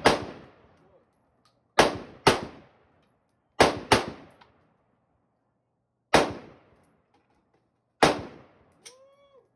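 Seven gunshots at a shooting range in an uneven string, two of them close pairs under half a second apart, each crack trailing off in a short echo.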